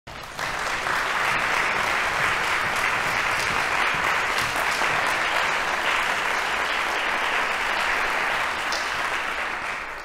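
Audience applauding steadily, dying away near the end.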